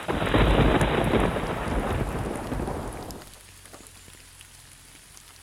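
A clap of thunder rumbling deep and loud for about three seconds, then dying away, leaving light rain pattering.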